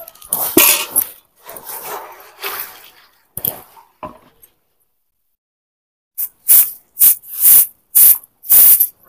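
Short grass hand brooms sweeping freshly parboiled paddy. First come irregular brushing swishes as the last grains are swept out of a large iron wok. After a short pause comes a regular run of short sweeping strokes over grain on the ground, about two or three a second.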